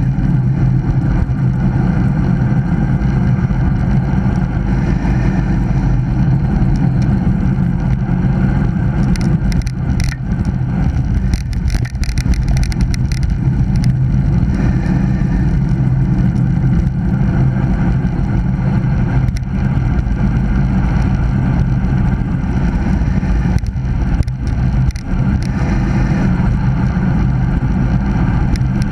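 Steady wind rush on the microphone of a bike-mounted camera during a fast road-bicycle descent, mixed with the hum of the tyres on asphalt. A few brief rattles come near the middle and again later, typical of the bike going over rough patches of road.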